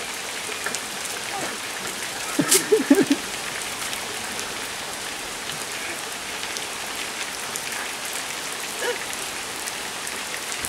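Steady rain falling on wet, puddled tarmac.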